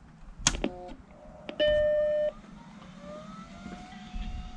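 Apple Macintosh SE being switched on: a click, a brief cluster of tones, then a loud steady startup beep lasting under a second. After that comes a whine that rises in pitch and levels off into a steady tone.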